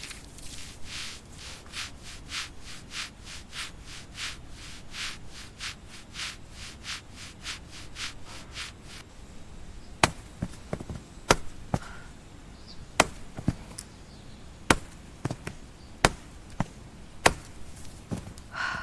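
Rhythmic scraping strokes, two to three a second, for about nine seconds. Then wood being chopped with an axe: sharp, loud chops about one every second and a quarter.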